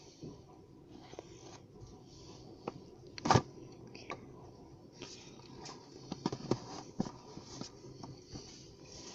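Pencil drawing on paper: scattered scratches and small taps, with one sharper knock about three seconds in and a run of quicker taps near the end.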